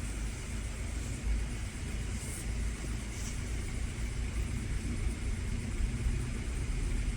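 Steady low rumble of background noise, with a couple of faint brief hisses.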